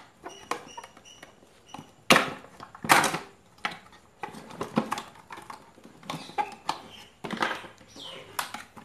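Clicks, knocks and scraping as a plastic-bodied electric iron is handled and taken apart with a screwdriver on a wooden bench, with two loud knocks about two and three seconds in.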